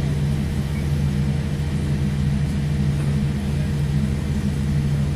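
Steady low rumble inside the cabin of a Boeing 787 Dreamliner on the ground, its engines running at idle as it taxis slowly.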